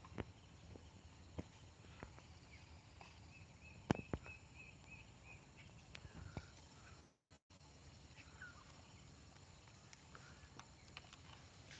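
Quiet outdoor ambience with scattered light clicks and knocks, and a quick run of about eight short, evenly spaced high chirps between about three and five and a half seconds in. The sound cuts out briefly about seven seconds in.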